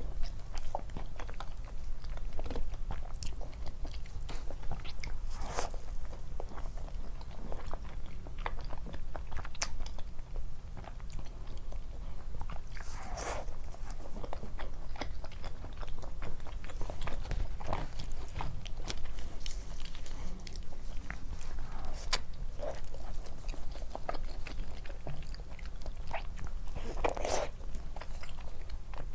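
Close-miked eating of soft desserts: repeated bites, chewing and wet, sticky mouth clicks and smacks, with a steady low hum underneath.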